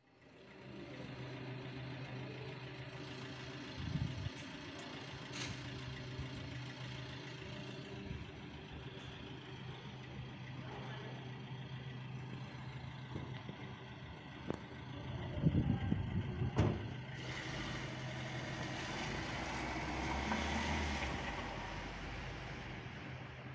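Street ambience under snowfall: a steady low engine hum, a short burst of low rumble with a couple of knocks about two-thirds through, then a vehicle passing on the wet, snowy street with a swelling and fading hiss near the end.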